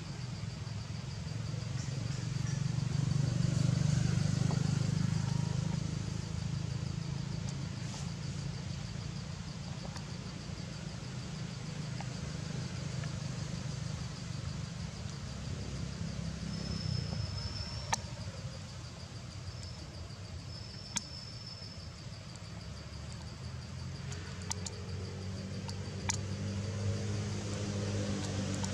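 Outdoor ambience: a low, steady rumble that swells and fades a few seconds in, under an even, high insect trill, with a few sharp clicks later on.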